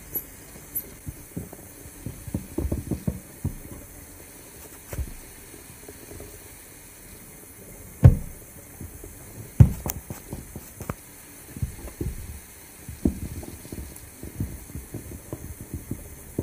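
Irregular soft knocks, clicks and rubbing of objects being handled, with two louder thumps about halfway through.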